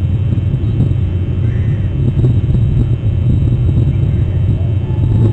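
Steady low rumble picked up by an outdoor nest-cam microphone, with a faint high chirp twice.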